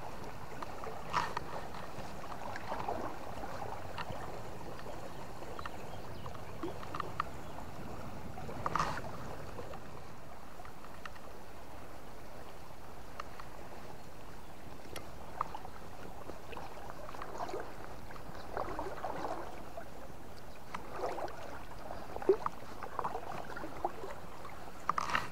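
River water running steadily, with soft splashes and sloshing of water now and then, as from wading through the current.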